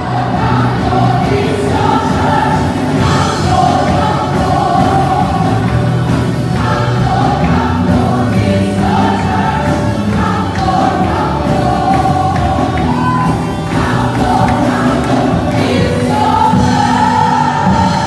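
A choir singing gospel music.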